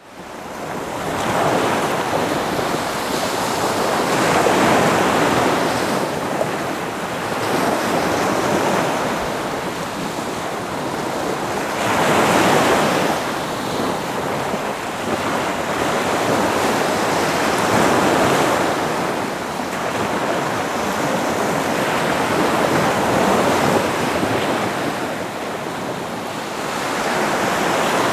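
Ocean surf: waves breaking and washing in one after another, a continuous rush of water that swells and eases every few seconds.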